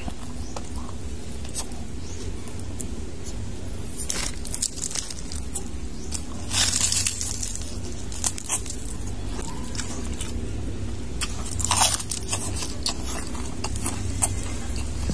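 Crunching and chewing of crispy deep-fried pork intestine (chicharon bulaklak), with irregular loud crunches, the biggest about seven and twelve seconds in, over a steady low hum.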